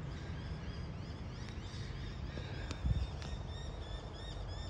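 Small birds chirping in quick, repeated high notes. There is a brief dull knock about three seconds in.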